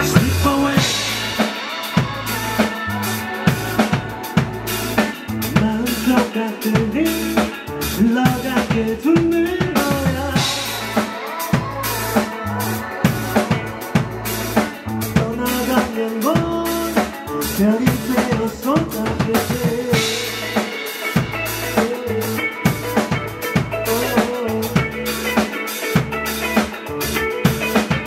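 A live rock band plays: a drum kit driving a steady beat under electric guitar and bass guitar.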